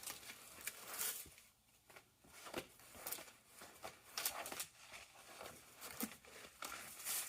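Rolls of faux leather vinyl and their plastic wrapping being handled, rustling and crinkling in irregular bursts with a short lull about two seconds in.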